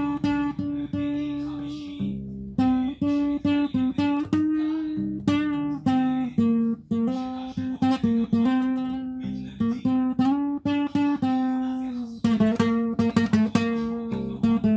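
Solo acoustic guitar playing a melody of plucked notes and chords that ring and fade, with a quicker run of picked notes about twelve seconds in.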